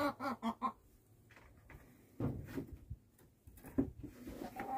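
Chickens clucking at the start and again near the end. In between come a few knocks and clunks as a flat panel coop heater is handled and set in place.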